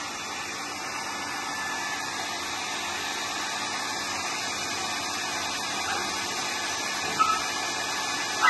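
Handheld hair dryer blowing steadily on a puppy's freshly washed coat, with a brief puppy yip about seven seconds in.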